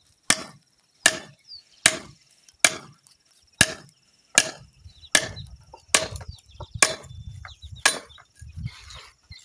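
Wood being chopped with a blade in steady, evenly spaced strokes, about a dozen sharp blows, roughly one every three-quarters of a second.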